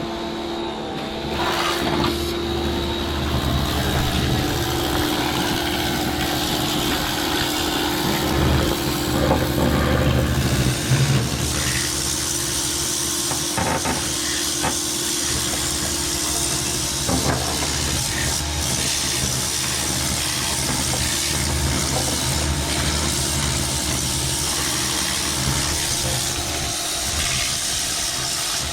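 Pressure washer running steadily, its high-pressure water jet hissing as it sprays down an oily engine bay.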